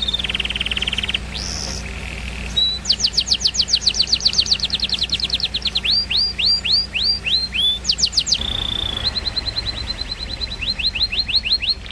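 Canary and lovebird song: a fast, varied run of high whistled notes, rapid down-sweeping phrases repeated several times a second alternating with buzzy trills, over a steady low hum.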